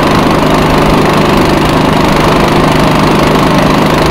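Outboard motor on a flat-bottom boat running steadily at an even pitch.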